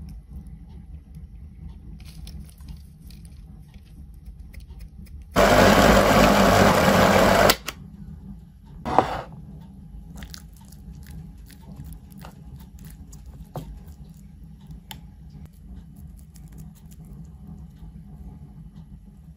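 Electric blender running in one burst of about two seconds, chopping raw chicken fillet, egg and butter into mince. Faint scattered taps and clicks come before and after it as the mince is handled.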